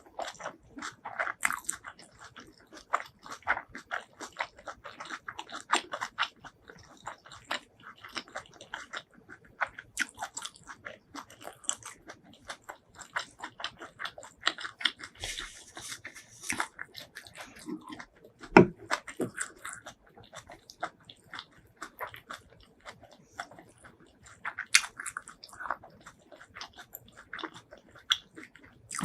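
Close-miked eating sounds: a person biting and chewing food, with many short irregular crunches and clicks and one sharper, louder bite a little past halfway.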